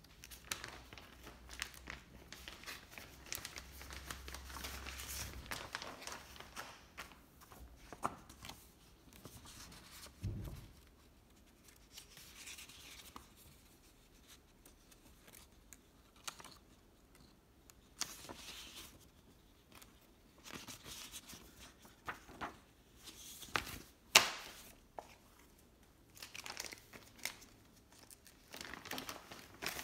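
Sheets of printed paper rustling and crinkling as they are handled, fanned out and laid down, in short spells with quiet gaps between. One sharp tap comes a little after the middle.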